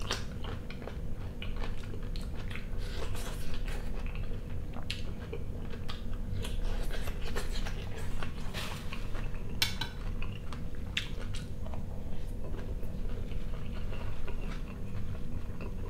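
Close-up mukbang eating sounds: chewing and biting on fried potatoes with chanterelle mushrooms, with scattered short clicks of a metal spoon against the plate.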